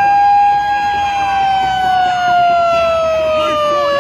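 A siren wailing, one high tone with strong overtones. It holds high, sinks slowly for about three and a half seconds, then swoops sharply back up at the end.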